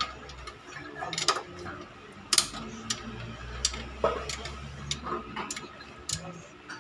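Irregular metallic clicks and knocks of hand tools and parts being handled during a teardown of a Toyota 4A engine's cylinder head, over a low steady hum.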